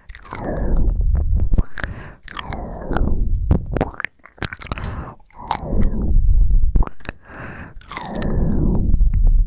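Heavy breathing close into the microphone: about five long, loud breaths, each puffing on the mic. Wet mouth clicks and lip smacks fall between the breaths.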